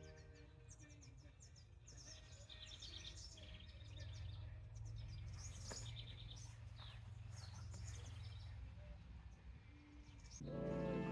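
Small birds chirping and trilling outdoors, many short high calls overlapping, over a faint low hum. Music comes in near the end.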